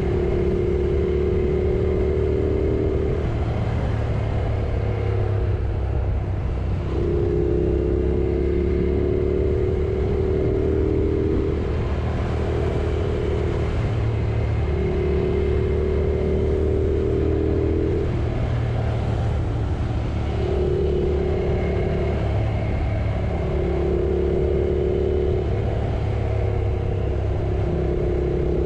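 Yamaha R6 sport bike's inline-four engine running while riding, over a steady low rumble of wind and road noise. The engine note holds steady for a few seconds at a time, with short breaks between.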